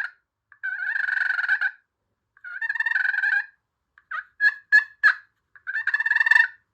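Friction pot call worked with a striker at light pressure, imitating a wild turkey's purr: rolling, fluttery notes about a second long, repeated with short gaps. Four short, quick notes come in the middle.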